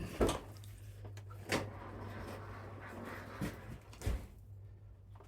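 Things being moved out of the way and set down: four scattered knocks and clunks over a steady low hum.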